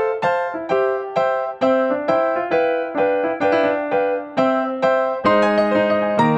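Background music: a keyboard playing a steady run of notes, about three a second, with lower held notes joining about five seconds in.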